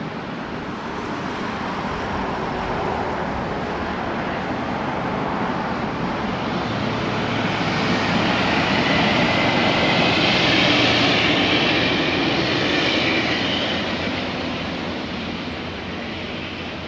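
Jet airliner on landing approach passing low overhead: the engine noise swells to a peak about ten seconds in, with a high whine on top, then fades away.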